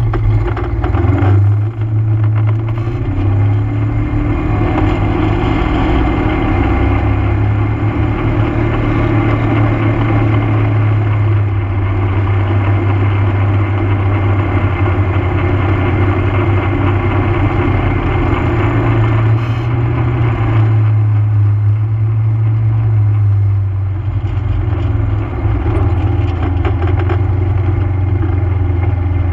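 ATV engine pulling away from a stop, then running steadily at road speed with a rushing wind and tyre noise over it. The rushing eases a little after 20 seconds in as the machine slows.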